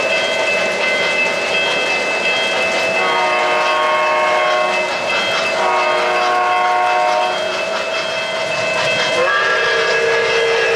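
Three-rail O-gauge model trains running, their onboard sound systems giving three long chime signals, each a chord of held notes lasting one to two seconds. Under them is the steady whir and clatter of the running trains.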